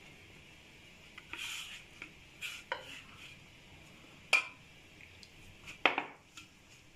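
Hands mixing flour into dough in a metal platter: soft rubbing and scraping with a few sharp clinks and knocks against the metal, the loudest about four and six seconds in.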